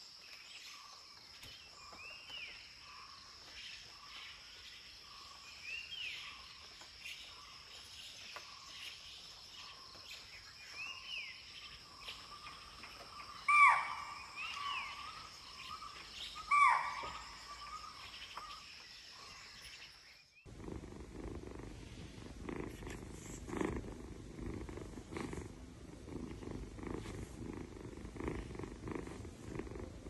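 Birds chirping in short repeated calls over a steady high-pitched hum, with two louder calls about halfway through. After a sudden change, a cat purring steadily.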